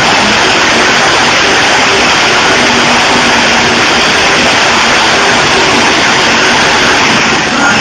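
Monster truck engine running hard, very loud and steady throughout.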